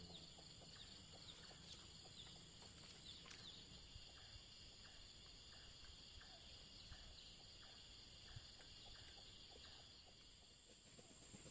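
Faint, steady, high-pitched chorus of insects, with a regular ticking call about one and a half times a second through the middle.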